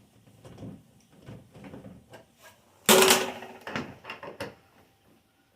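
Loose metal parts being handled inside a van: a few light knocks, then a loud metallic clank about three seconds in that rings briefly, followed by several lighter clatters.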